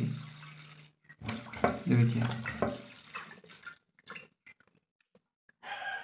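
Water running and trickling in a toilet cistern that is nearly full. The float valve has just been tightened so that it shuts off, and the sound is faint and comes in short spells.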